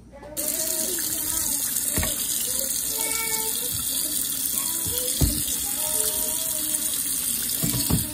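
Kitchen faucet turned on about half a second in, water running steadily into a stainless steel sink as a shirt is rinsed under the stream. A few dull knocks from handling sound about 2, 5 and 8 seconds in.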